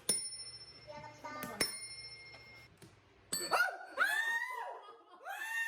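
Two bright bell dings, about a second and a half apart, each ringing on for a second or so. From about three and a half seconds in, a run of high, rising-and-falling whining calls follows.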